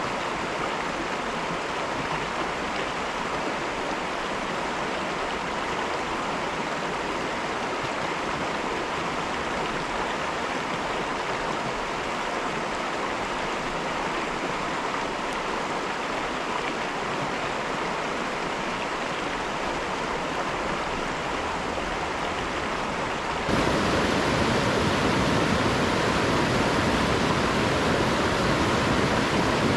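The Caribou River flowing, a steady rush of water. About 23 seconds in it jumps abruptly louder and deeper.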